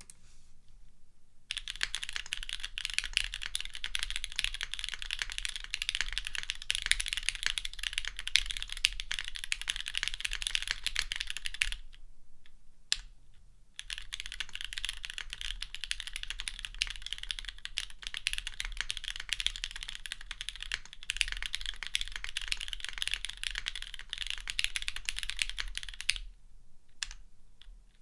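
Fast typing on a mechanical keyboard with lubed and filmed SP Star Meteor White V2 switches, GMK keycaps and a half aluminium plate: a dense run of key clacks. After a pause of about two seconds, some twelve seconds in, typing resumes at a normal pace, thinning to a few keystrokes near the end.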